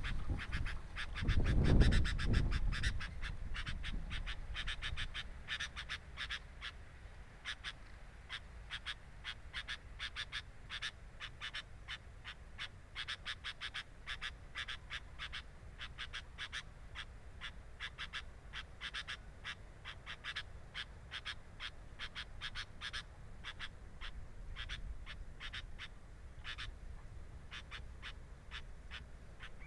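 Sooty-headed bulbul nestlings begging at the nest: a fast, unbroken run of short, repeated chirps. A loud low rumble comes in the first couple of seconds.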